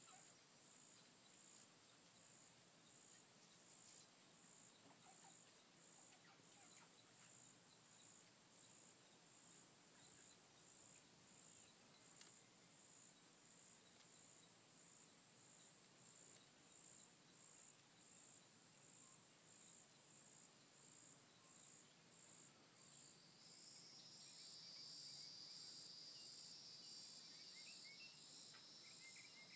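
Faint insects calling: a high, pulsing call that repeats a little more than once a second. About 23 seconds in, a louder steady high buzz from more insects joins it.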